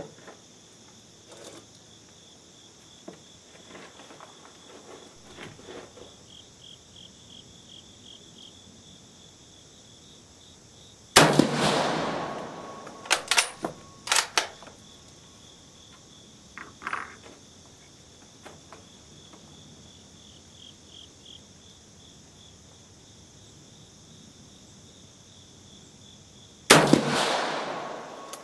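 Two rifle shots from a Swedish M38 Mauser bolt-action in 6.5×55mm, one about 11 seconds in and one near the end, each ringing out in a long decay. A few seconds after the first, sharp metallic clicks as the bolt is worked. Insects chirp steadily underneath.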